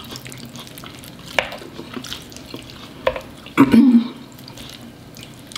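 Close-up food-handling sounds: a fork clicking and scraping against the food and board while rotisserie chicken is pulled apart by hand. There are a few sharp clicks, the loudest just past halfway.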